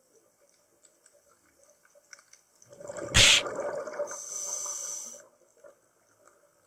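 Scuba diver breathing through a regulator underwater: a loud rush of exhaled bubbles about three seconds in, then the hiss of an inhale lasting about a second. Faint scattered clicks otherwise.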